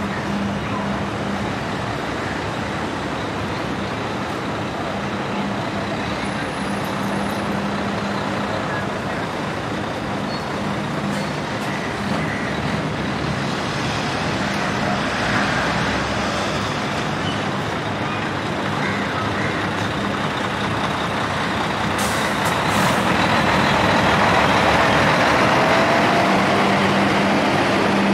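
Road traffic noise: a steady wash of passing vehicles with a low, steady hum under it, growing louder over the last few seconds.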